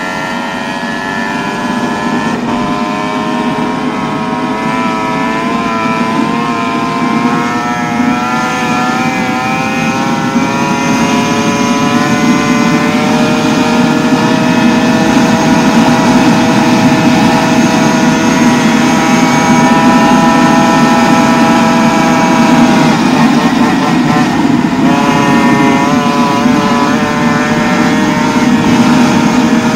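Go-Ped's reed-valve 63cc two-stroke engine with a Jetpro Race 63 expansion pipe running hard at high revs, its pitch climbing slowly as speed builds. The revs drop briefly about three quarters of the way through, then pull back up.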